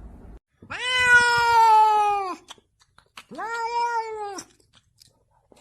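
Domestic cat giving two long, drawn-out meows, the first about a second in and the second shorter, each dropping in pitch at the end.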